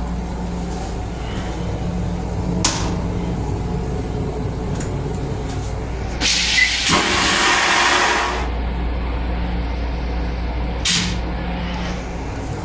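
Railcar toilet flushing: a loud rushing whoosh of about two seconds, starting about six seconds in, over the steady low rumble of the train. A sharp click comes early and another near the end.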